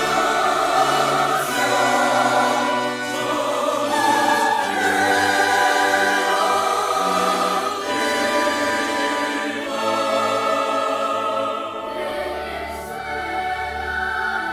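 Choral music: a choir singing long held chords that change every second or two.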